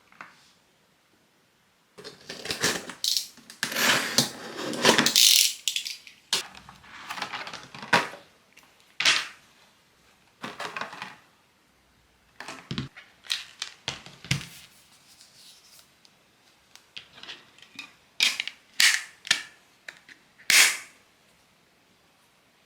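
A run of sharp clacks and clicks in irregular bursts, thickest for a few seconds near the start, then in scattered groups.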